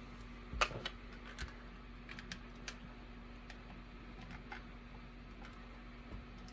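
A few light clicks and knocks of handling as a wooden clapper is set down on the wool pressing mat and an iron is picked up and placed on the fabric, the loudest knock about half a second in.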